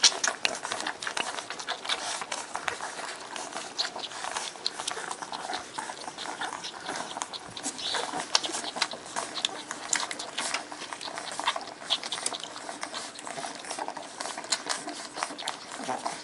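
Newborn Shar-Pei puppies nursing: a busy stream of wet suckling clicks and smacks, with short high squeaks and whimpers breaking in here and there.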